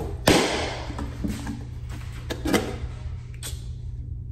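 Several sharp knocks and taps from handling a canister and other kitchen items, the loudest just after the start, over a steady low hum.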